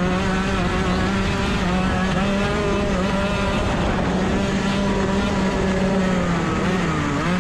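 Racing kart engine running hard, its pitch holding steady as the kart gathers speed, then dropping near the end as the kart slows. Rough wind and track noise lie under it.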